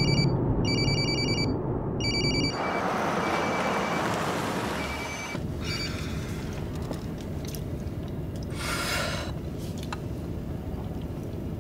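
A telephone ringing in repeated trilled bursts, then the rushing road noise of a moving car with the ring faint beneath it. After about five seconds the car goes quiet, with small clicks and a short breathy sound near the end.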